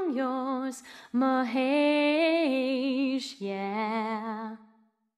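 Background song: a woman singing long, held notes with vibrato, fading out near the end.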